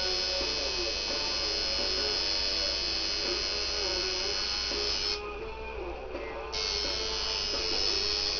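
Electric tattoo machine buzzing steadily as it inks skin. It cuts out for about a second and a half just past the middle, then starts again. Music plays in the background.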